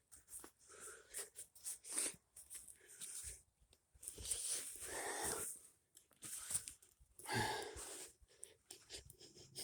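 Faint, breathy puffs of breath close to the microphone, several in a row, mixed with soft crunching and scraping of soil as potatoes are dug by hand.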